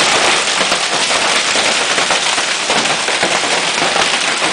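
Large hailstones pelting down in a heavy storm: a dense, steady clatter of countless small impacts.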